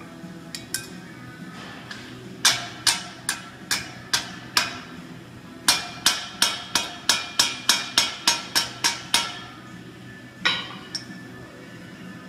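Hand hammer striking a forged iron scrollwork panel, sharp ringing metal blows: a run of about six evenly spaced strikes, then after a short pause a faster run of a dozen or so at about three a second, and one last blow near the end.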